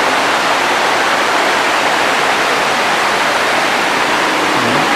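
Steady, loud rain falling, an even rushing hiss with no breaks.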